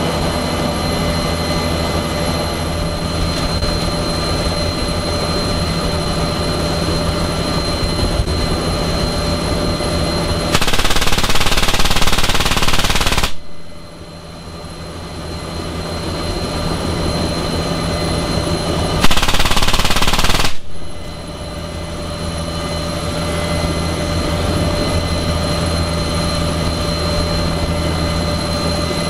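Two long bursts of fire from an M3M 12.7 mm heavy machine gun, the first lasting about three seconds about ten seconds in and the second about a second and a half just before the twenty-second mark. Both are heard over the steady turbine whine and rotor hum inside an NH90 helicopter's cabin.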